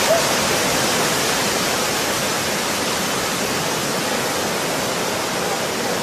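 Tsunami surge water rushing ashore and churning through the beach huts, heard as a steady, loud wash of noise with no breaks.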